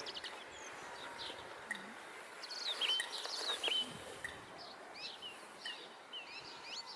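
Several small birds chirping: short high calls, some rising or falling, scattered throughout and thickest about three seconds in, over a steady outdoor background hiss.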